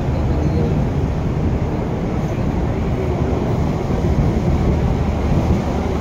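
A steady, loud low rumble of outdoor noise, with no distinct events.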